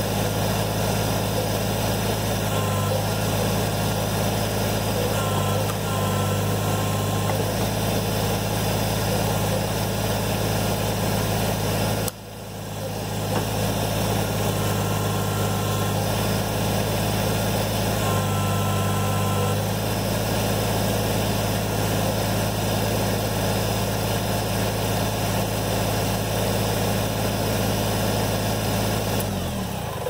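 Kubota BX23S sub-compact tractor's three-cylinder diesel running steadily while its backhoe works. A few times, around 3 s, 5–7 s and 18–19 s, a higher hydraulic whine rises as the boom and thumb take load, and the engine note shifts with it. The sound briefly dips about 12 seconds in, then picks up again.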